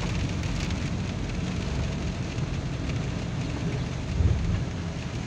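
Rain and tyres on a wet road heard from inside a moving car's cabin: a steady hiss over a low, even rumble. A brief louder thump comes about four seconds in.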